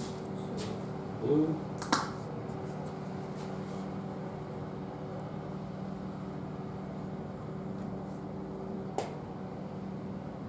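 Plastic bottle of wood glue being handled and squeezed out: a couple of sharp clicks about two seconds in and one more click near the end, over a steady low hum.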